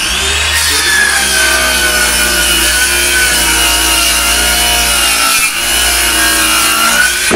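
Handheld circular saw cutting a straight line through a worktop: its motor whines steadily under load, dips briefly about five seconds in, then stops as the cut finishes.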